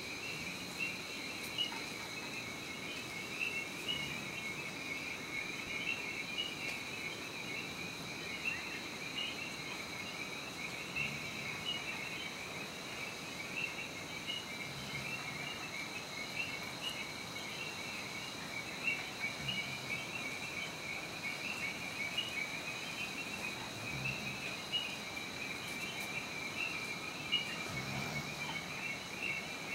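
A chorus of frogs calling at night, many rapid chirps overlapping without pause, over a steady high-pitched trill.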